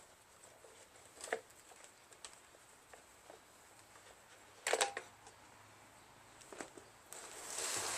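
Hand tools and small parts being handled during work on the blower: a few light clicks, a brief metallic clatter about halfway through, then rustling and scraping near the end.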